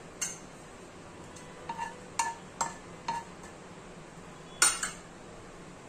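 Steel spoon clinking against metal dishes and the pan: a scattering of light clinks, then a louder quick clatter a little before the end.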